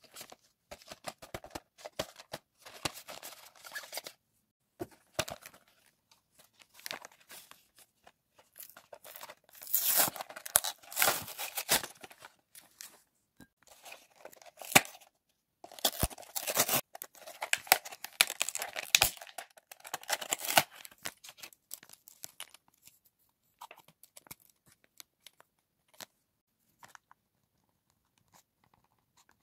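Cardboard-and-plastic blister packaging of a ballpoint pen being torn and peeled open by hand, with crinkling and sharp clicks. The tearing comes in two long, loud stretches around the middle.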